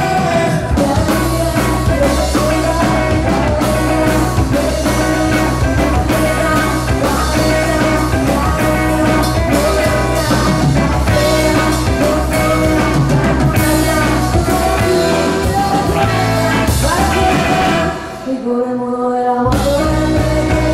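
A live rock band playing: electric guitars, bass, drum kit and a woman singing lead. Near the end the drums and bass drop out for about a second and a half, then the full band comes back in.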